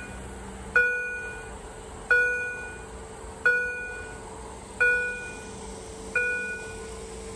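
Level crossing warning bell striking a ringing gong tone over and over, five strikes in an even beat of about one every second and a third, each dying away before the next.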